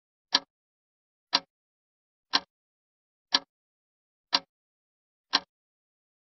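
Clock-ticking sound effect: sharp ticks exactly once a second, with silence between, counting off answering time.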